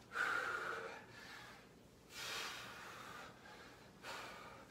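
A man breathing hard from exertion during squats: a breath just after the start, another from about two seconds in, and a short one near the end.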